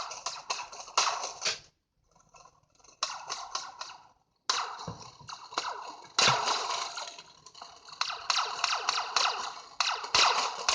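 Analogue sound effect of crackling, sputtering noise in stop-start bursts. It cuts off abruptly twice early on, with short silent gaps, then runs on louder in the second half.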